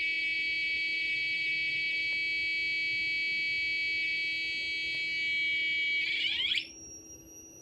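A 555 timer oscillator's buzzy tone from a small speaker, held steady and high-pitched with many overtones. About six seconds in, the pitch sweeps sharply upward as the potentiometer is turned, and the tone turns much quieter and very high.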